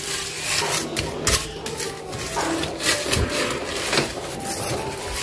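Cleaning noises: rubbing and scrubbing with irregular short knocks and clatter of things being handled, a few sharper knocks about a second in and again near three seconds.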